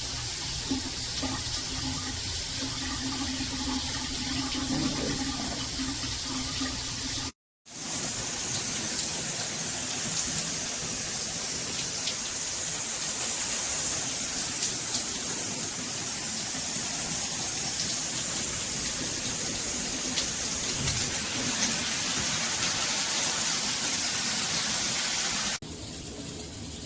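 Water spraying from a Luxsego filtered handheld shower head: a steady hiss. It cuts out for a moment about seven seconds in and comes back louder, then drops to a quieter run near the end.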